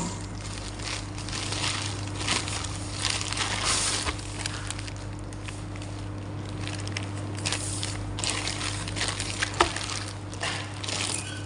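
Packaging being handled and rustled during an unboxing, in irregular crinkling bursts with a sharp click about 9.6 s in, over a steady low hum.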